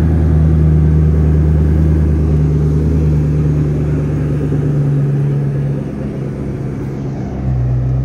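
Koenigsegg Agera's twin-turbo V8 running at low revs as the car creeps forward; the engine note eases off about five seconds in and picks back up shortly before the end.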